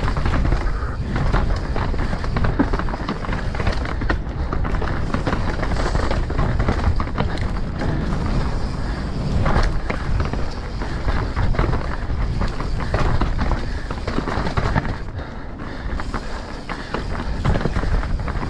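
Mountain bike riding over a rough trail: a steady rumble with constant rattling and clattering from the bike over bumps.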